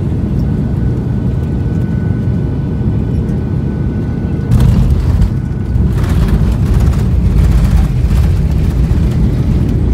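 Jet airliner cabin noise during landing: a steady engine drone, then about four and a half seconds in a sudden loud jolt as the wheels hit the runway in a hard touchdown. A louder rumble and rush follow as the plane rolls out on the runway.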